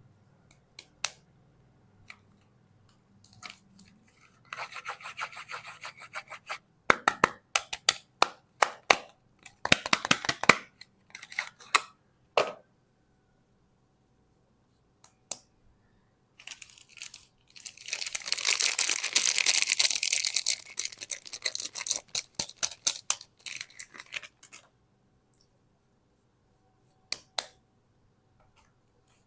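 Soap packaging being handled and unwrapped by hand: scattered sharp clicks and short crinkling bursts, then a dense rustling stretch of about five seconds past the middle, followed by a few clicks and quiet near the end.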